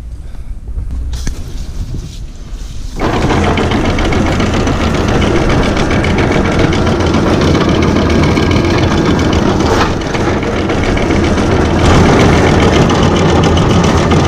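A loud, steady mechanical running noise, most likely a motor, starts abruptly about three seconds in and continues without a break.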